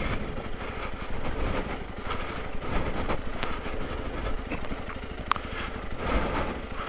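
Honda CRF300L Rally's single-cylinder engine running at low revs as the bike descends a slippery snow-and-mud trail, with a brief high chirp about five seconds in.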